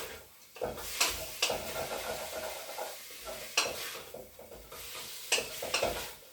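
Diced chicken sizzling in a pot with a little oil, stirred with a utensil that knocks and scrapes against the pot several times.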